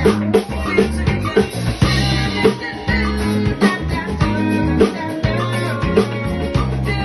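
Fender Custom Shop electric bass playing a busy funk bass line along with a recorded song, with drums and singing.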